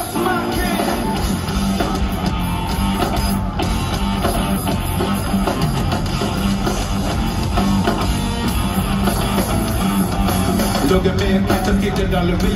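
Live rock band playing a funk-rock song through a stadium PA: electric guitar, bass and drum kit going steadily, heard from within the crowd.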